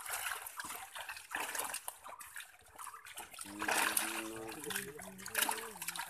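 Muddy water splashing and trickling as hands work through a net full of small live fish and mud. From about halfway in, a voice holds long, drawn-out notes over the splashing and is the loudest sound.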